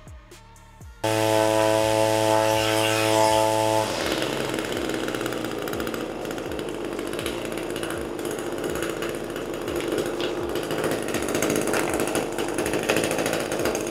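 Echo 225 string trimmer's two-stroke engine running after a new carburetor and spark plug. It starts abruptly about a second in with a steady, even hum, and about four seconds in changes to a rougher, noisier buzz.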